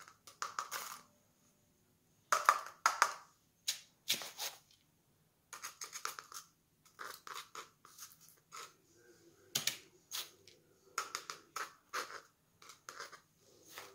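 Wet perlite scooped with a spoon and dropped into a clear plastic cup: irregular gritty crunching and scraping, a few scoops in a row, the granules rattling against the spoon and the thin plastic.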